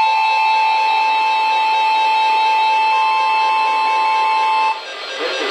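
Emergency Alert System attention signal: a steady two-tone alarm, loud and unwavering, that cuts off suddenly near the end. Busier music-like sound follows in the last moments.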